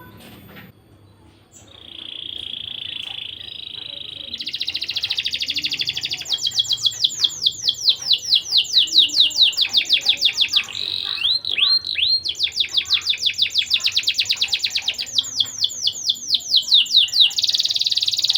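Domestic canary singing a long, fast song. A high buzzy trill about two seconds in gives way to rapid runs of repeated down-slurred notes, broken by a few slower looping notes midway.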